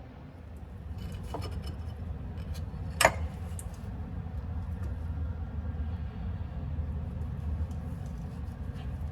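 Light clinks and taps of hard objects, with one sharp click about three seconds in, over a low steady rumble.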